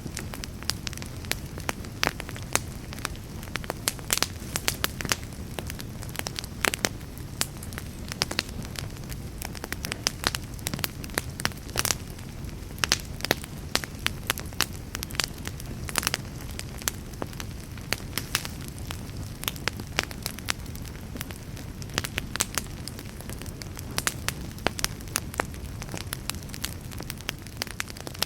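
Fireplace fire crackling, with frequent sharp irregular pops over a steady low rumble of the flames.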